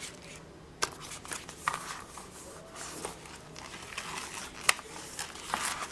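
Paper and notebook handling: rustling with soft taps and a few sharp clicks as notebook inserts are fitted into a traveler's notebook under its elastic straps.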